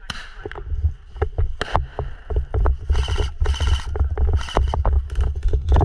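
Heavy low rumble of movement or wind buffeting the microphone, starting suddenly, with a quick, irregular series of sharp clicks and knocks and a few short rustles.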